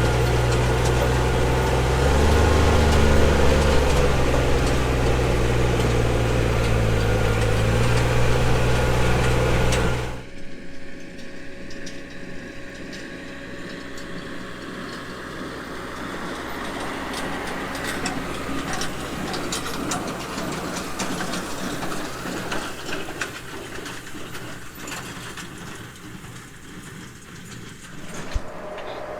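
A vehicle engine runs steadily and loudly, rising briefly in pitch about two seconds in. About ten seconds in it cuts off sharply to a quieter, rougher rumble of a vehicle on the move.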